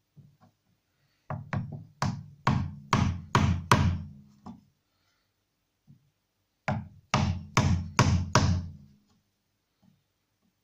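A wood chisel being struck, chopping a shallow notch out of a timber cupboard frame back to a knife-scored line: a run of about seven sharp knocks, a pause of about two seconds, then five more, at two to three a second, each with a short low ring from the frame.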